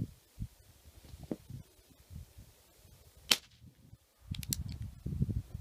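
Crosman E9A .22 CO2 pistol firing once: a single sharp crack a little past halfway through. About a second later come a few quick metallic clicks as the bolt is worked for the next shot.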